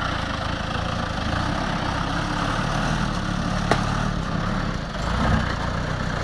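ARO off-road vehicle's engine running steadily at low revs. A single sharp click comes about halfway through, and the engine briefly gets louder near the end.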